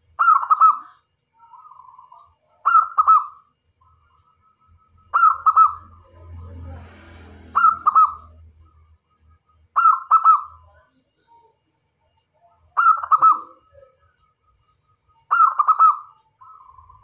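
Zebra dove (perkutut) singing its cooing song: a short phrase of quick, clipped coos repeated seven times, about every two and a half seconds, some phrases trailing into a softer, lower trill.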